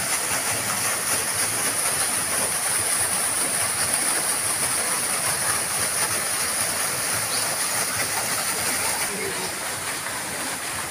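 Water from small waterfalls spilling into a rock pond, a steady rushing and splashing hiss that eases a little near the end.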